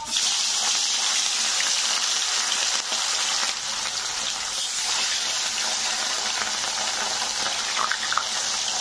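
Fish pieces frying in hot oil in a kadai: a loud, steady sizzle that starts abruptly.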